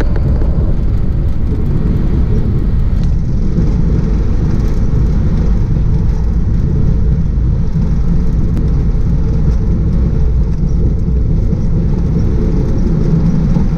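Jet airliner's engines and running gear, a steady low rumble heard inside the cockpit as the aircraft moves along the runway.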